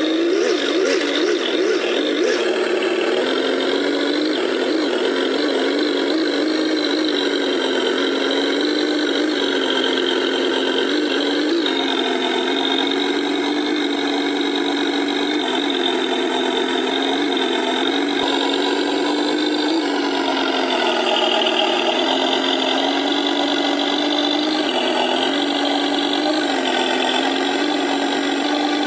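Simulated V8 engine sound from an RC truck's electronic sound unit, a steady idle-like engine note that steps up and down slightly in pitch a few times.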